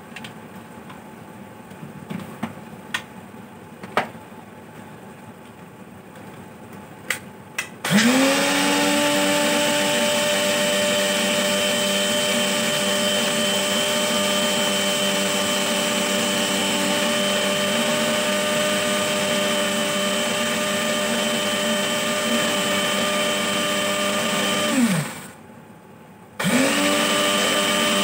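Kitchen mixer grinder (mixie) grinding mustard seeds and fennel with salt into a paste: a few light clicks and knocks, then about eight seconds in the motor spins up with a rising whine and runs steadily. Near the end it winds down, pauses briefly and starts again.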